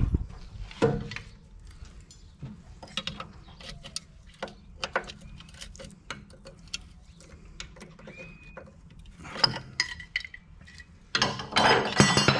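Metal-on-metal clinks, taps and scrapes of hand tools and a steel part being fitted inside an open pumping-unit gearbox, scattered and irregular, with a louder, denser run of clanking near the end.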